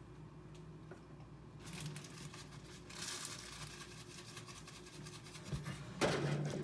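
Scratchy rustling and rubbing that starts about two seconds in and grows louder, then a louder scrape of handling about six seconds in as the phone is moved.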